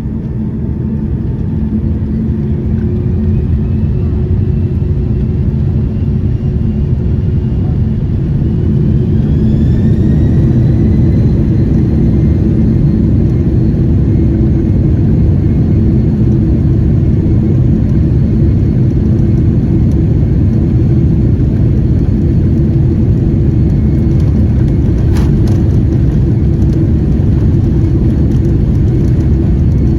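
Airliner jet engines heard from inside the passenger cabin, spooling up to takeoff thrust: a steady low rumble that grows louder over the first ten seconds, with a whine that rises in pitch and then holds steady as the aircraft rolls and climbs.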